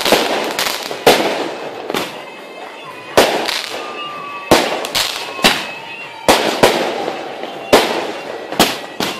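Aerial fireworks going off: a string of sharp bangs, roughly one a second, each burst trailing into crackling, with faint whistling between them.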